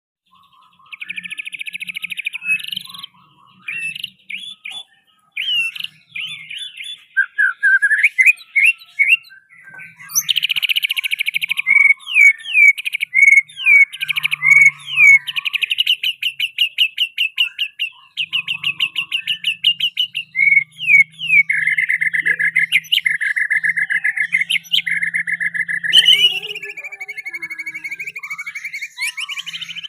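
White-rumped shama (murai batu) singing a long, varied song of rapid trills, runs of repeated notes and quick rising and falling whistles, full of the learned mimicry phrases (isian) that keepers train into the bird.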